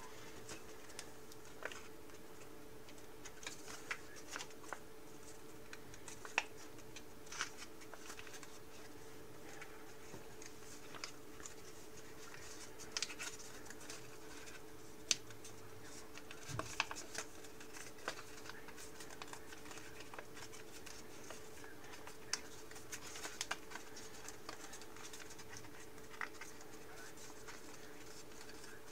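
Sheet of origami paper being folded and pinched by hand: scattered short crinkles, creases and rustles at irregular intervals, over a faint steady hum.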